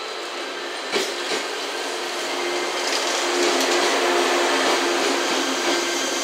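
KuMoYa 443 AC/DC electric inspection car rolling slowly past close by: a steady whirring of its running gear and on-board equipment, growing louder as the cars draw level. A sharp click comes about a second in, and a low steady hum joins about halfway through.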